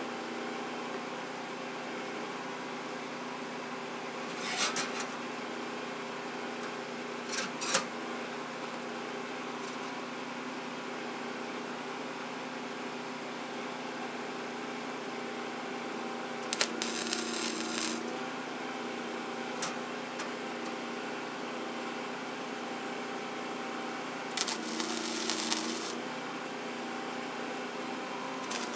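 Steady electrical hum from a Lincoln Electric wire-feed welder. Twice, about midway and again near the end, a short tack weld crackles and sizzles for a second or so, and the hum shifts under the arc's load. A few sharp metal clicks come earlier.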